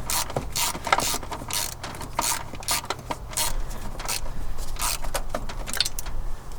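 Hand ratchet wrench clicking through repeated short strokes on a bolt, about two clicks a second.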